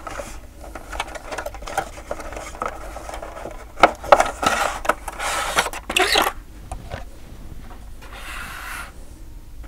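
Cardboard packaging being handled: a diecast model car's inner cardboard tray is slid and pulled out of its box, with irregular rubbing and scraping and a few sharp taps about four seconds in.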